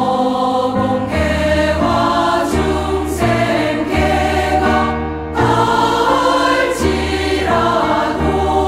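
Choir singing a Korean Buddhist service hymn over instrumental accompaniment, with a brief pause between phrases about five seconds in.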